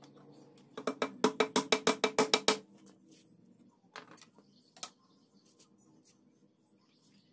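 Hammer tapping a nail into a wooden shelf slat: about a dozen quick strikes in under two seconds. A few single knocks of wooden slats being handled follow.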